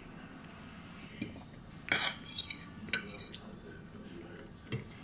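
Fork clinking and scraping against a plate a few times, with the loudest cluster of clinks about two seconds in.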